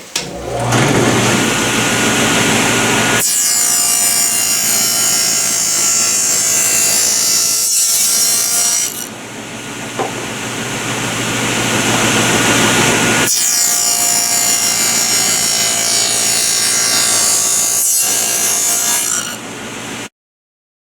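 Table saw with a 9/16-inch dado blade cutting a groove along 2x4 stock, two long cutting passes with the blade running quieter between them.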